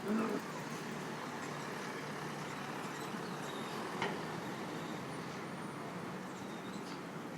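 City street traffic: a motor vehicle, likely a bus or truck, running past with a steady low hum. There is a short louder sound right at the start and a sharp click about four seconds in.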